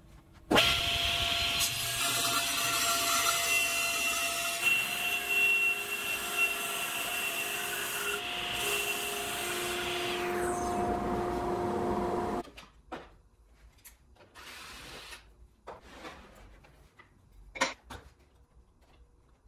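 Table saw running and cutting wood, a steady whine with a wide noisy hiss, starting suddenly about half a second in and stopping suddenly about twelve seconds in. A few short knocks of wood being handled follow.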